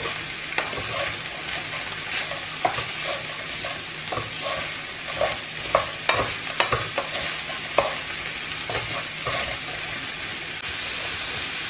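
Ground meat and frozen vegetables with rice sizzling in a frying pan while a wooden spatula stirs them, with irregular scrapes and knocks against the pan over a steady frying hiss.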